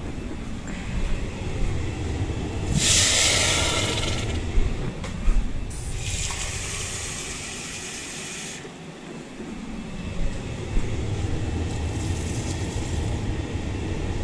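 Kitchen faucet running into a glass measuring cup in two spells of a few seconds each, with a couple of short knocks between them, over a steady low hum.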